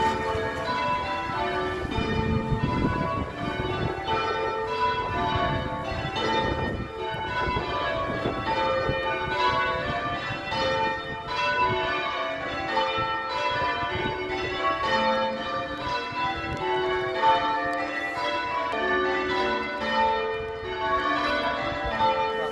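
Church bells ringing in England, several bells of different pitches struck one after another in a steady, unbroken stream of strokes, each note ringing on under the next.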